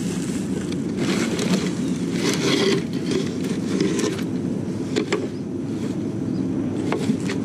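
Steady low rumble of a vehicle on the move, with a few knocks and rattles.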